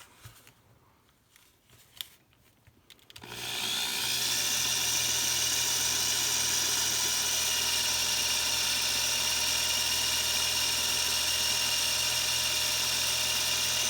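Power drill with a 9/64-inch bit starting about three seconds in and running steadily with a high whine, drilling out a rivet post through a toy car's plastic base.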